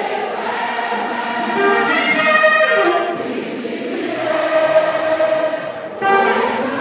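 Live gospel worship music over a concert-hall PA: a saxophone melody with long held notes over backing vocalists singing. A new phrase comes in sharply about six seconds in.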